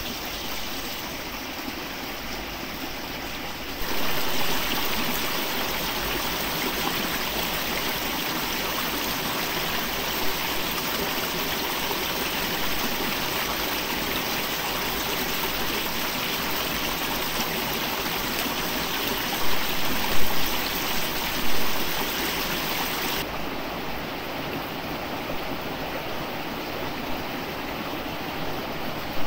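Water of a forest stream rushing steadily. It gets louder and brighter about four seconds in, and turns duller near the end. A few brief louder sounds come about two-thirds of the way through.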